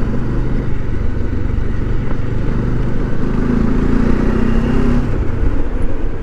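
Motorcycle engine running while riding at road speed, with steady road and wind noise; the engine note firms up a little past the middle and eases off about five seconds in.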